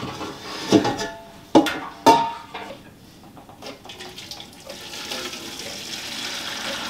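A metal stockpot clanks three times against the strainer and pot, then boiled-down maple sap pours in a steady stream through a cheesecloth-lined colander into a pot below, the pouring growing louder toward the end.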